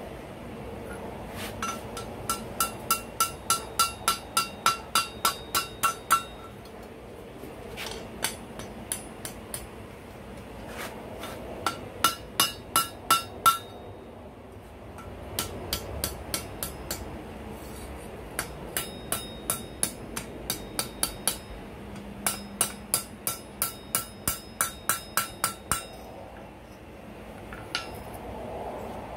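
Hand hammer striking hot steel on an anvil in six quick runs of blows, about three to four a second, each blow ringing with a clear metallic note. Short pauses separate the runs.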